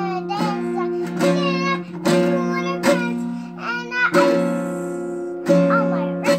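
A small child strums a small acoustic guitar roughly once a second, letting the chords ring, while singing along in a high voice.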